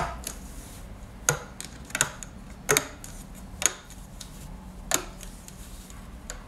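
Several sharp, irregularly spaced clicks and taps, about one to one and a half seconds apart, as a hook pulls rubber bands off the pegs of a plastic loom board and the bands snap against the plastic.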